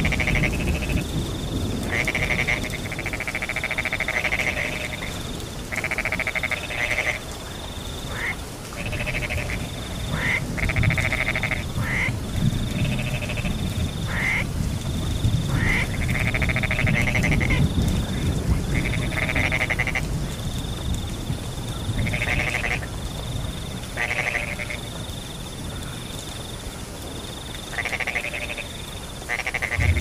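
Frogs croaking in a chorus, calls of half a second to a second and a half repeating every second or two, over a steady high cricket trill broken by short gaps. A low rumble of rain runs underneath.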